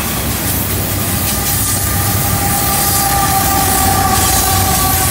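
Freight train cars rolling through a curve, steel wheels squealing against the rail in two steady high tones, over a continuous low rumble; the mid-train diesel locomotive draws level near the end.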